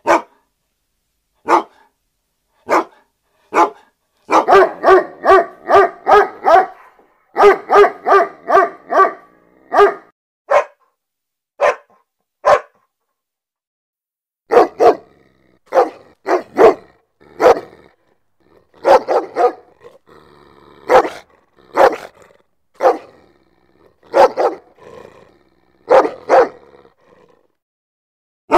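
A dog barking. Single sharp barks come about a second apart, then a rapid run of barks, about three a second, lasts several seconds. After a short pause the barking starts again in irregular single barks and short volleys.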